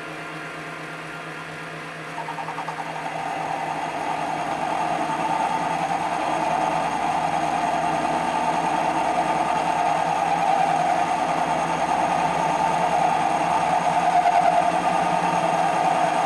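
MX-210V benchtop lathe running with its spindle turning the compound's crank dial. About two seconds in, the insert boring bar starts cutting into the bore, adding a louder cutting noise that builds steadily over the lathe's hum.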